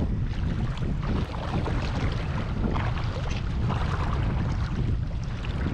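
Low rumble and water sloshing as a Ford pickup truck drives through shallow lake water, with wind buffeting the microphone.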